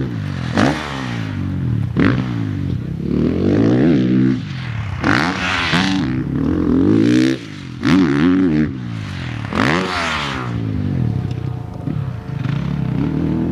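Gas Gas MC450F motocross bike's single-cylinder four-stroke engine being ridden hard, revving up and backing off over and over, its pitch rising and falling with the throttle, with a few sudden sharp bursts.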